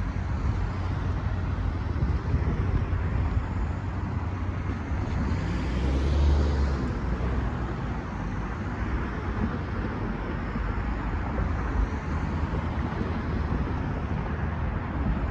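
Road traffic: cars and trucks driving over the railroad crossing close by, a steady rumble of engines and tyres, loudest as one vehicle passes about six seconds in.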